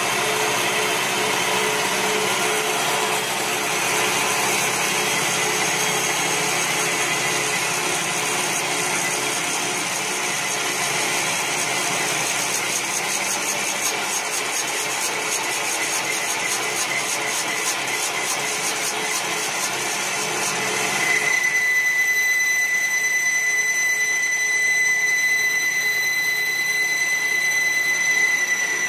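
CNC wood lathe cutting a spinning wooden spindle: a steady machine whine mixed with the hiss of the cutter shaving wood. About two-thirds of the way through the sound turns into a steadier, slightly louder high whine.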